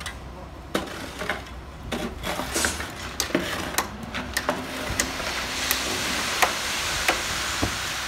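Wet concrete sliding down a ready-mix truck's chute into a footing form, with a shovel and rake scraping and knocking through it in a string of sharp strokes. About halfway through, the hiss of the flowing concrete grows louder, over a low steady drone from the mixer truck.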